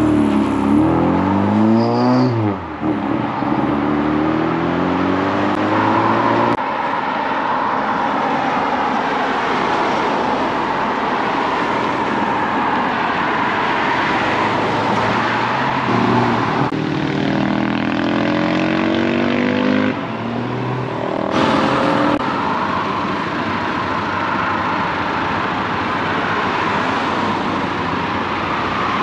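Cars driving off one after another, engines revving and accelerating: an engine note rises in the first couple of seconds and runs on until it cuts off about six seconds in, and another engine is heard from about sixteen to twenty-one seconds, over a steady rushing noise.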